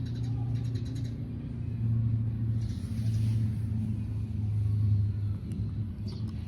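Steady low engine hum with a few light clicks.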